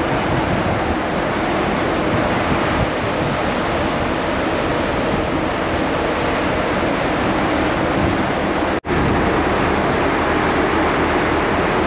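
Steady rushing of strong wind on the microphone together with the sea washing past a ferry in choppy water. The sound cuts out for a split second about nine seconds in.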